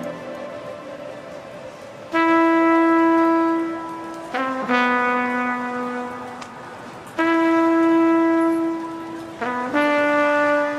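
Lounge music: a brass instrument plays slow, long held notes, about five of them, each a couple of seconds, over a sparse backing with no drums or bass.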